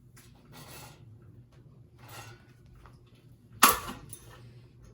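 A single loud, sharp impact about three-quarters of the way in: a blow struck at a ceiling fan, dying away briefly, with a fainter knock just after. Before it there are only faint rustles over a low hum.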